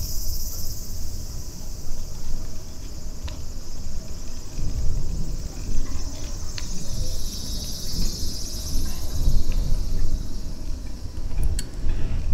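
A chorus of summer cicadas buzzing in the trees, the high buzz strong at first, fading, then swelling again about halfway through, over a steady low rumble.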